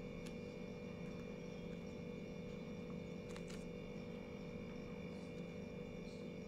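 Quiet room tone: a steady faint hum with a few soft ticks, which fit a dotting tool being dipped in paint on a plastic palette and set down on the painting board.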